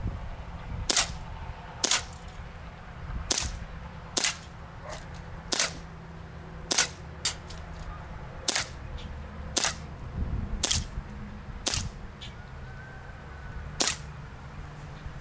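Colt 2009 Rail Concept CO2 blowback airsoft pistol fired semi-automatically: about a dozen sharp pops at an uneven pace of roughly one a second, each shot cycling the metal slide.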